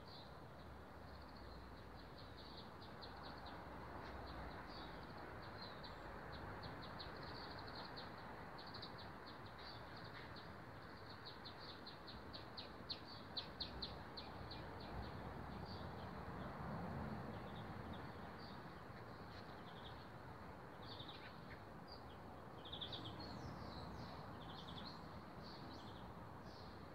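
Faint birds chirping: rapid runs of short high notes, breaking into separate chirps near the end, over a steady low background noise.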